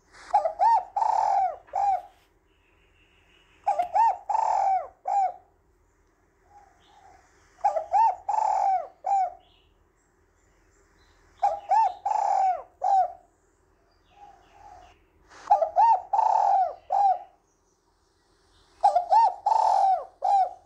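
Spotted dove (cu gáy) cooing: six phrases of several coo notes each, about one every four seconds, most led by a soft introductory note. It is a female's call, used to stir a male into calling.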